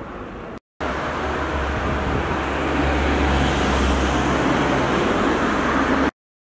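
Street traffic noise with a motor vehicle's engine running low and steady. The sound drops out briefly just under a second in, comes back louder, and cuts off abruptly near the end.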